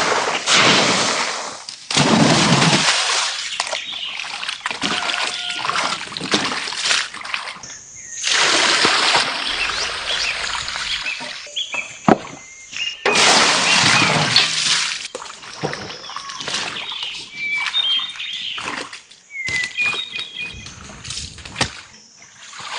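Water splashing and sloshing in irregular bursts, with short bird chirps near the end.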